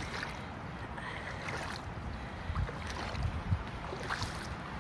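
Wading through shallow flood water in wellington boots, the water sloshing and splashing around the boots.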